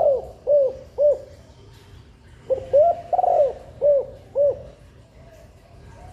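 Spotted dove cooing: two phrases of short arched coos, one ending about a second in and the next starting about two and a half seconds in, each with one longer drawn-out note.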